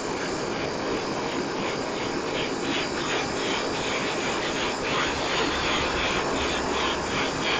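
Gas torch flame burning with a steady rushing hiss that flutters slightly, heating the steel frame tubing for silver soldering.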